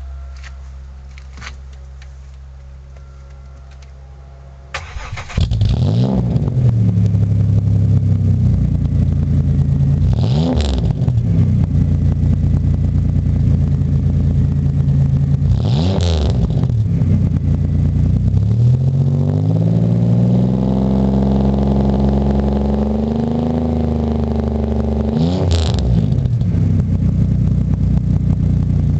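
Pontiac Grand Am GT's V6 engine starting about five seconds in, then idling through a loud aftermarket exhaust. It is blipped in four quick revs and held up in one longer rev of several seconds. A quieter steady low hum comes before the start.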